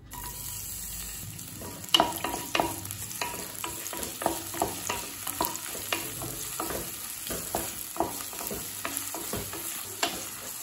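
Sliced onion sizzling in hot oil in a pot as it goes in. From about two seconds in, a wooden spatula stirs it, scraping and knocking against the pot a few times a second over the steady sizzle.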